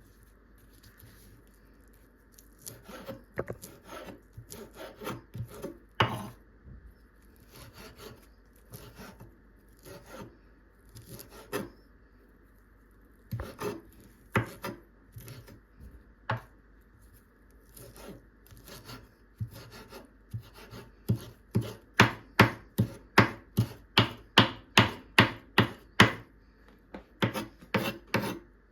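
Kitchen knife chopping on a wooden cutting board. The cuts come in irregular clusters at first, then settle into a quick, louder, regular rhythm of about two to three strokes a second in the last several seconds.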